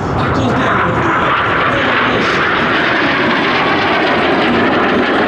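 Aermacchi MB-339PAN jet trainer's single turbojet engine in flight, a steady, loud jet noise with no sudden changes.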